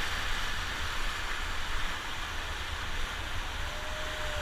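Whitewater rapids rushing steadily around a rafting boat, an even hiss of churning water over a low rumble.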